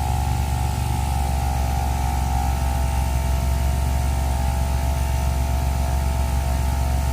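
Vehicle engine running steadily: a constant low hum with a steady higher tone above it, no change in pitch.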